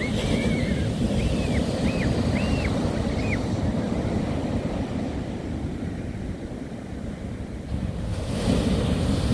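Sea surf rolling onto the beach, with wind buffeting the microphone; the roar ebbs and then swells again as a new wave comes in near the end. About five short high calls sound in the first three seconds.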